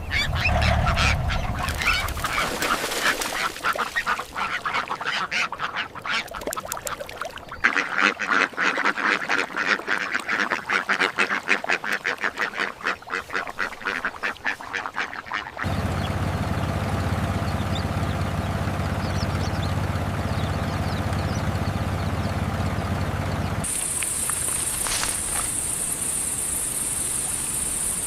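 A flock of ducks quacking rapidly and continuously for about the first half. The quacking then cuts off, giving way to a steady low hum. From near the end, a steady high-pitched cricket trill.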